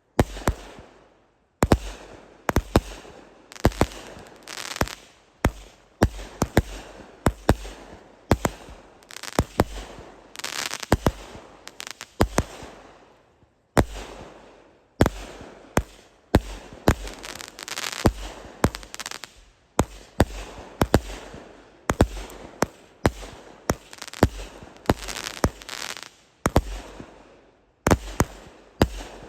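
A large consumer firework going off in a long multi-shot run, a sharp bang every half second or so, each trailed by crackling and hiss.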